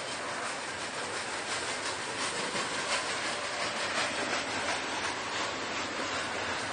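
Freight train rolling past: a steady rush of wheels on rail, with a faint rhythmic clatter of wheels over rail joints through the middle.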